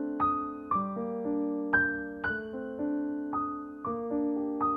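Background music: a gentle piano melody, notes struck about twice a second, each fading over held lower notes.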